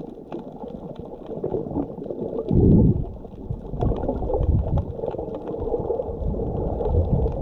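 Muffled underwater sound heard through a submerged camera: water gurgling and bubbling, with faint clicks and a louder low rush of water or bubbles about two and a half seconds in.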